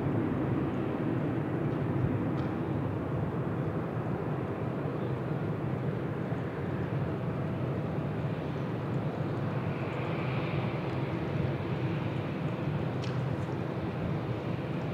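Jet airliner engines running, a steady low noise that eases slightly over the first few seconds and then holds level.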